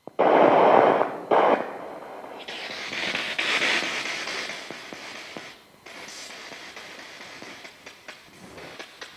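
Spirit box (sweeping radio scanner) running: loud bursts of static hiss at the start and again about a second in, then choppy static broken by clicks that come faster near the end as it jumps from station to station.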